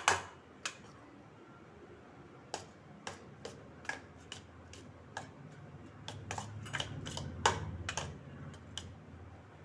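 A spoon tapping and scraping against a bowl in irregular clicks while spiced mashed potato is stirred, with a soft low mashing rumble about two-thirds of the way through.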